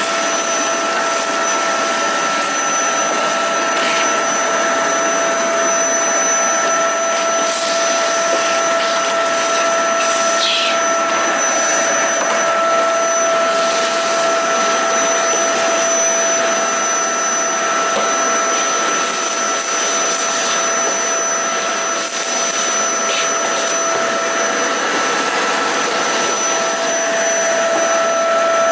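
Vacuum cleaner running steadily with a whine, sucking up fragments of a broken car windshield, with a few faint ticks.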